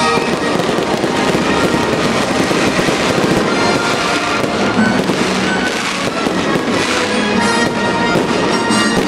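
Aerial fireworks going off in a rapid, continuous volley of bangs and crackles, with music playing underneath.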